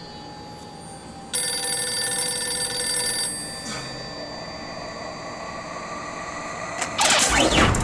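Payphone ringing: a steady electronic ring that starts suddenly about a second in and lasts about two seconds. Near the end, a loud rushing noise cuts in.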